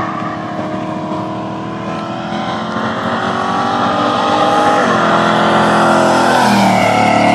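Car engine running at high revs as the car speeds down the road, getting louder, then dropping in pitch as it passes near the end.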